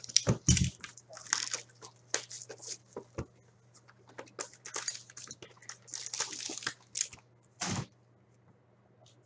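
A sealed box of hockey trading cards being opened: wrapping crinkling and tearing in quick strokes, with a few thumps from the box being handled, over a low steady hum.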